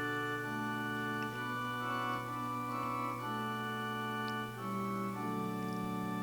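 Organ playing slow, sustained chords over a held low bass note, the chords changing every second or so.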